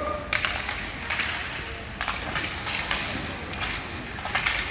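Youth ice hockey play on the rink: irregular sharp scrapes and clacks of skate blades and sticks on ice, several a second.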